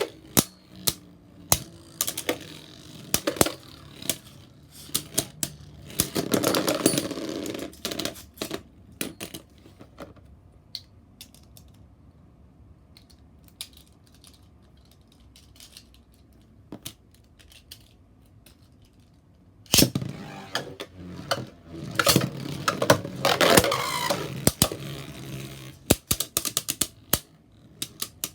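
Beyblade Burst spinning tops clattering in a plastic stadium: rapid sharp clacks of collisions over a spinning whir. The sound thins to occasional clicks midway, then starts abruptly loud again about two-thirds of the way through.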